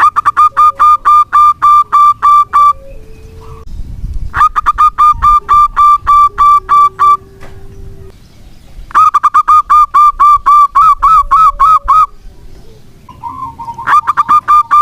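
Zebra dove (perkutut) calling: rapid series of short, evenly spaced notes, about five a second, in bouts of roughly three seconds broken by short pauses, four bouts in all.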